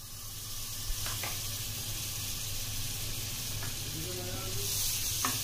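Food sizzling as it fries in hot oil in a pan, stirred with a utensil that gives a few light clicks against the pan.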